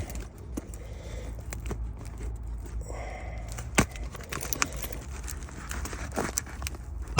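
Packing tape on a cardboard shipping box being cut and torn with a key: scattered clicks, scrapes and crinkles, with one sharper click about four seconds in, over a steady low hum.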